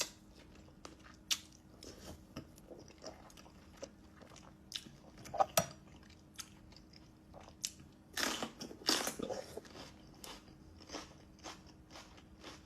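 Close-miked chewing of salmon sashimi: soft wet mouth clicks and smacks, with louder bites about five seconds in and again eight to nine seconds in.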